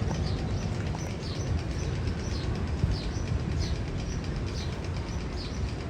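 A short, high, falling chirp repeating about once a second, like a bird or a chirping sound effect, over a steady low rumble.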